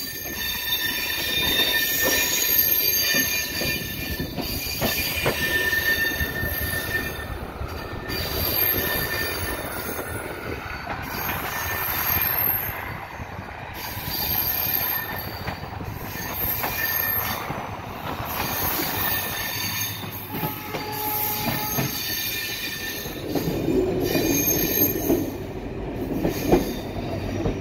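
Steel train wheels squealing on the rails, several high-pitched tones coming and going, over a steady rumble of the train rolling slowly through yard curves and switches, heard from on board.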